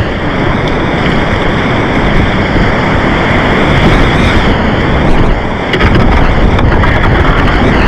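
Loud, steady rush of whitewater around a kayak running down a steep rapid. The rush eases briefly about five and a half seconds in, then swells again.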